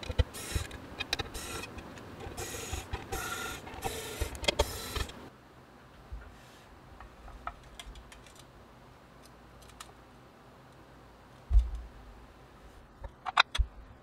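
Pen-style electric screwdriver whirring in short bursts as it drives the screws into the bottom of a custom keyboard case, for about the first five seconds. Then quieter handling clicks, a low thump about eleven and a half seconds in as the case is put down, and a few sharp clicks near the end.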